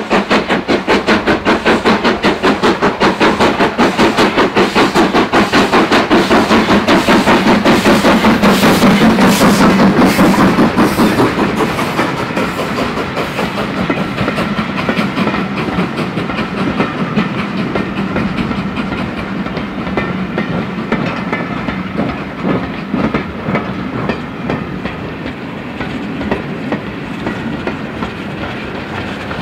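BR Standard Class 4MT 2-6-0 steam locomotive working hard, its exhaust beating in a rapid, even rhythm of about three beats a second. After about eleven seconds the beats give way to a quieter rumble and clickety-clack of the passing coaches' wheels on the rails.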